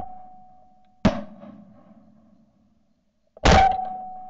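Two shotgun shots at ducks overhead, about a second in and again near the end, each trailing off in an echo.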